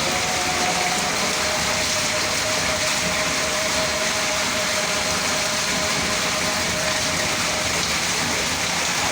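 Heavy rain falling steadily, with a faint held tone underneath for most of it.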